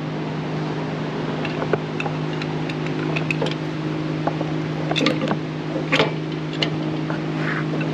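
Small metallic clicks and taps as an electric motor and its 10 mm bolts and nuts are worked into an XL Crazy Cart's steel front fork by hand, the sharpest about five and six seconds in, over a steady low hum of a fan or machine.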